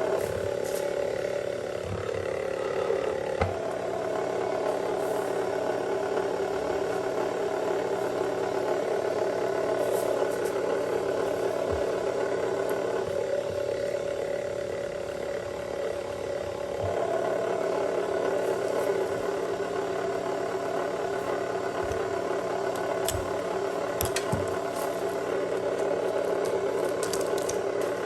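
A copper wire stripping machine running with a steady hum while heavy wire is fed through it. The pitch shifts a few times as the load changes, with scattered clicks and rattles from the wire.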